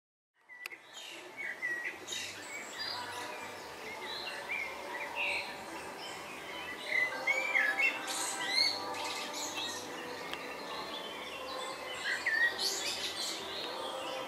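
Several songbirds chirping and singing at once, a busy chorus of short calls and quick whistled notes that comes in from silence about half a second in.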